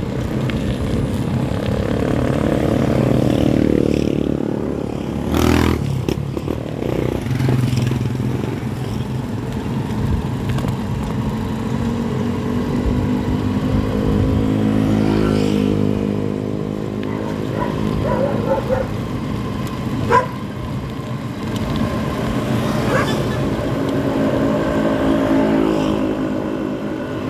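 Engine of a motorcycle-with-sidecar tricycle running just ahead, its pitch shifting up and down with the throttle, over steady road noise. Two sharp clicks stand out, about five seconds in and about twenty seconds in.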